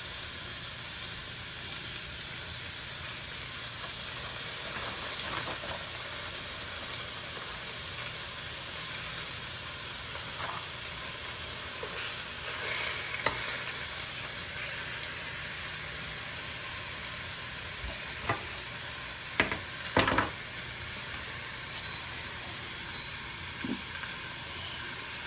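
Food sizzling steadily in a hot frying pan, with a few sharp clicks and knocks in the second half, the loudest group a little under two-thirds of the way through.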